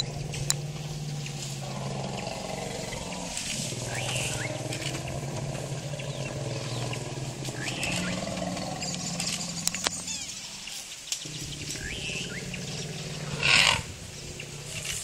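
African elephants rumbling and roaring together in long, low, overlapping calls: the excited chorus of a family group around a mating, known as mating pandemonium. A short, louder, higher call rings out near the end.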